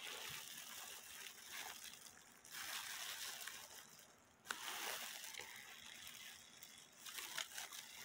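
Faint rustling of disposable plastic gloves handling a brass clock movement, with a few light clicks of metal parts, the sharpest about four and a half seconds in.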